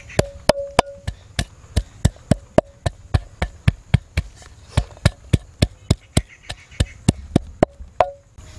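Wooden pestle pounding garlic cloves in a terracotta clay mortar: a steady run of sharp knocks, about three a second, some leaving a brief ring from the clay bowl. The pounding stops just before the end.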